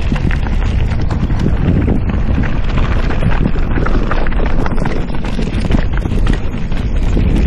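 Mountain bike riding fast down a rocky dirt singletrack: a steady stream of clattering and knocking as the tyres hit stones and the bike rattles over the bumps, with wind rumbling on the action camera's microphone.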